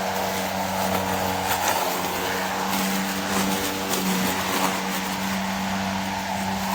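Cordless electric lawn mower running steadily, its motor and blade giving an even hum.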